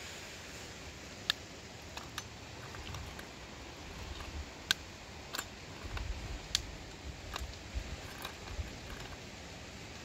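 Light, scattered clicks and snaps of hands breaking and handling small white pieces over a steel bowl, a dozen or so spread irregularly, with a few dull knocks in the middle. A steady hiss of running water lies underneath.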